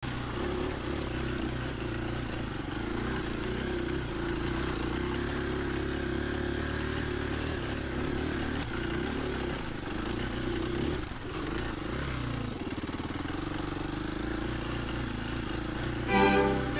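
Dual-sport motorcycle engine running steadily under way, its note dipping briefly about eleven seconds in. Violins start up just at the end.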